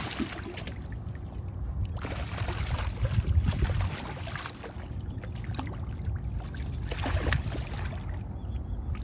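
Speckled trout thrashing and splashing at the water's surface on the end of a fishing line, in several noisy spells over a steady low rumble.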